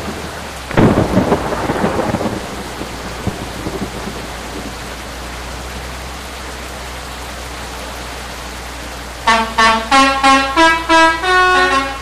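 A steady rushing noise, louder for a second or so near the start. About nine seconds in, a bus's telolet horn plays a quick tune of short notes stepping up and down in pitch, about four a second.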